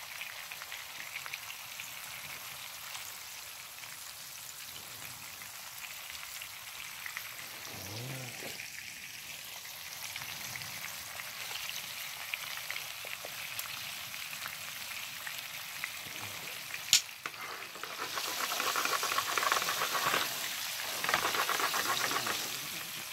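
Flour-coated flounder pieces frying in hot oil in a frying pan: a steady sizzle with fine crackling. A sharp click about three quarters of the way through, then the sizzling grows louder for a few seconds near the end.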